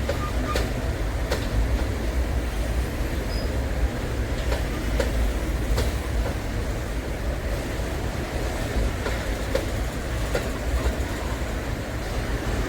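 Freight train wagons rolling over a railway bridge: a steady low rumble with irregular sharp clicks and knocks from the wheels.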